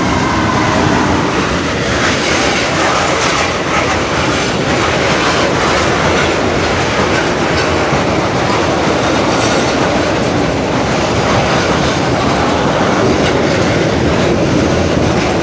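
A Freightliner diesel freight locomotive passes close by, followed by a line of freight wagons whose wheels run over the rails with a steady, loud noise.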